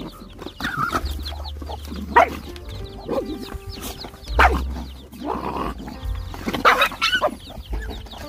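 Dogs and puppies squabbling over a shared food bowl, with three louder dog outbursts about two, four and a half and nearly seven seconds in, and chicks peeping among them.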